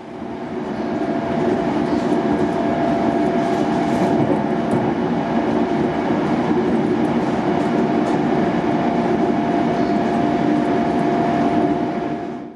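Passenger train running, heard from inside the carriage: a steady rumble of wheels on the rails with a thin steady whine over it and a few light clicks. It builds up over the first second or two and cuts off suddenly at the end.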